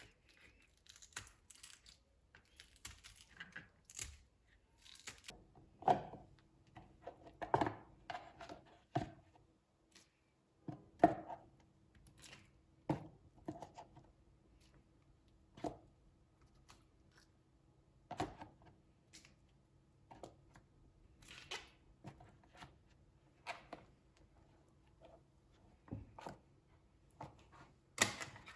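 Kitchen food-prep handling sounds: irregular knocks, taps and rustling, with a few sharper knocks spread through. A faint steady hum joins about five seconds in.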